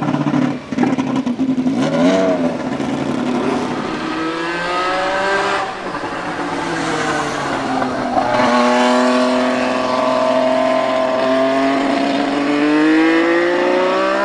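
1979 Renault RS10 Formula 1 car's 1.5-litre twin-turbo V6 revving hard as it accelerates. The engine note climbs and drops back twice at gearshifts, then climbs steadily and rises sharply near the end.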